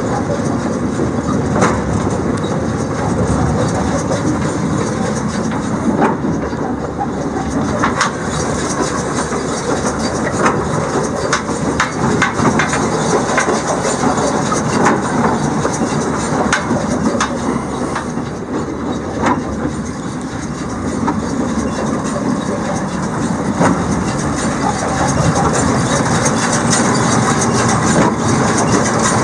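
Hesston 4750 big square baler running: a steady mechanical clatter with scattered sharp clanks.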